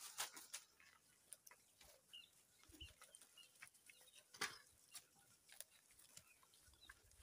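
Near silence, with scattered faint clicks and rustles from handling and a few faint, short, high chirps like small birds.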